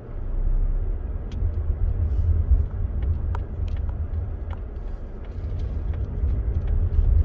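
A car driving: a steady low rumble of engine and road noise, with a few faint ticks.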